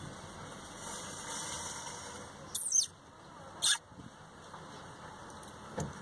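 European starling giving short, high squeaky calls: one about two and a half seconds in with a falling, wavering pitch, a sharper one about a second later, and a brief faint one near the end.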